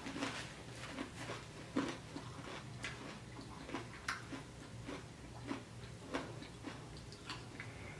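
Close-miked chewing of a mouthful of food, with soft wet mouth clicks and smacks coming irregularly, a few a second.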